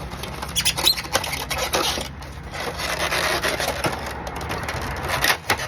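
Parts of a small air conditioner being worked loose by hand: irregular scraping, rubbing and clicking of metal and plastic, with a louder scrape near the end.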